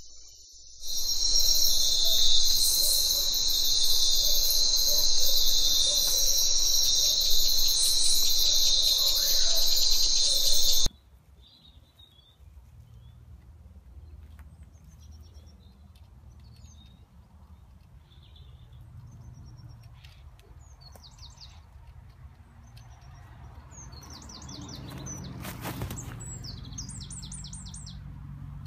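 Loud, high, insect-like chirring, like a chorus of crickets, for about ten seconds, cutting off abruptly. After it, birds chirp now and then over quiet outdoor background.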